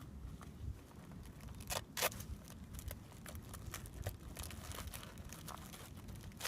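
Handling of small kit items and their packaging: scattered light rustling, crinkling and clicks, with a couple of sharper crackles about two seconds in.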